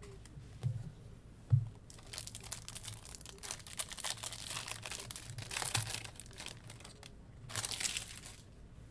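Foil wrapper of a Topps Chrome baseball card pack being torn open and crinkled by hand: a few seconds of crackling from about two seconds in, then a shorter burst of crinkling near the end. Two dull thumps come first, the second one the loudest sound.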